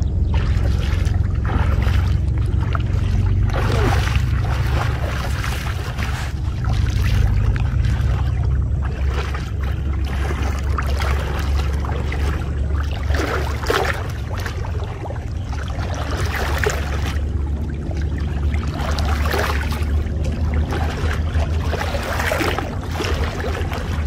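Water sloshing and splashing irregularly as a person wades through knee-deep muddy water, over a steady low rumble.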